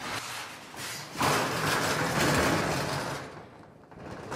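Corrugated metal roll-up door of a storage unit being pulled down by its rope handle, running louder from about a second in and fading out near the end.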